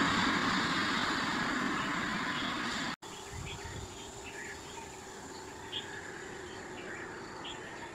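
A car driving past and away, its engine and road noise fading steadily over about three seconds. Then the sound cuts to a quieter outdoor background with short, high chirps.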